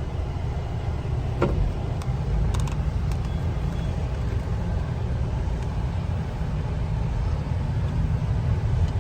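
Steady low rumble of a motor vehicle running, with a couple of faint clicks.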